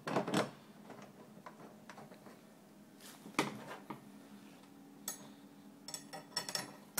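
Aluminum flat bar and metric bolts clinking and tapping as they are handled and fitted into the bar's drilled holes: two sharp clinks at the start, another about three and a half seconds in, and a run of small clicks near the end.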